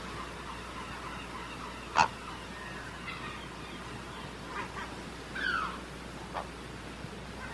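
Scattered bird calls over a steady background hiss: one loud, sharp call about two seconds in, then a few shorter calls around the middle, one of them sliding down in pitch.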